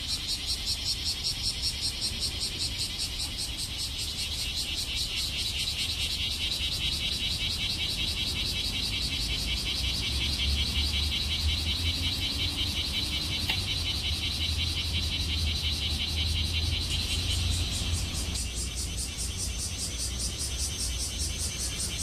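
Cicadas singing: a steady high-pitched buzzing chorus that pulses evenly several times a second, with a low rumble underneath.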